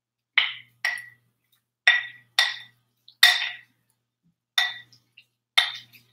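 Wooden spoon knocking against a glass mixing bowl while tossing cubed raw tuna, about seven unevenly spaced clinks, the glass ringing briefly after each.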